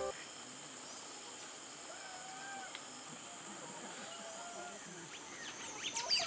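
Tropical outdoor ambience: a steady high-pitched insect drone with a few faint distant calls. Near the end, chirping starts up and the sound grows louder.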